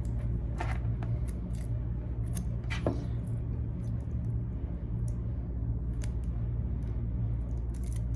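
Scattered light clicks, snips and rustles as the wires and shielding of a network cable are trimmed and handled with a sharp tool, over a steady low hum.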